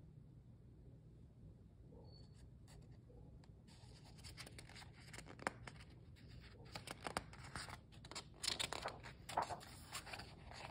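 Faint room hum, then from about four seconds in, rustling and scraping of paper as a page of a picture book is handled and turned.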